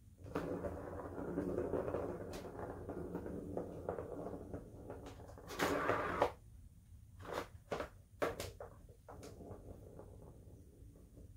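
Cat's Turbo Scratcher toy: a plastic ball rolling and rattling around its plastic ring track for about six seconds, loudest just before it stops. This is followed by a few separate sharp knocks and taps as the cat bats at the ball.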